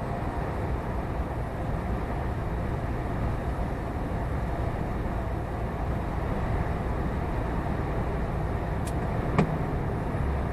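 Steady engine and road noise of a moving lorry heard from inside the cab, with a single sharp click about nine seconds in.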